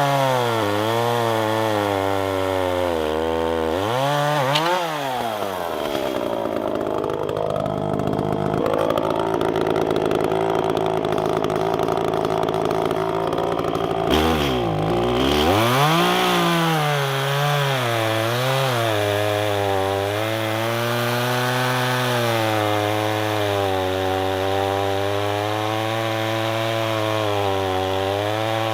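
Gas chainsaw running and cutting wood, its engine pitch dipping and climbing again several times as the throttle is eased and squeezed. It runs lower for several seconds near the middle, drops off suddenly, then revs back up and holds high and fairly steady.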